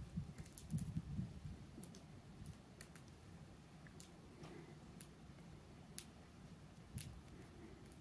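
Faint footsteps crunching on icy, packed snow, loudest in the first second or so, then light sharp clicks about once a second.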